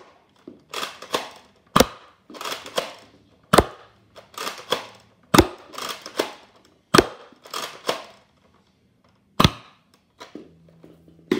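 Spring-powered Nerf dart blaster being fired five times, each shot a sharp pop, roughly every two seconds. Between shots come quieter plastic clacks of the blaster being primed for the next dart.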